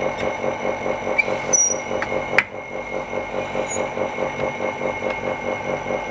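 Small vacuum pump on a screen-refurbishing laminating machine running with a steady, rapid pulsing hum and a faint whine. There is a sharp click about two and a half seconds in.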